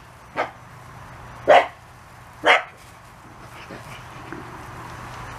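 Pembroke Welsh Corgi barking: three short, sharp barks about a second apart, in the first half.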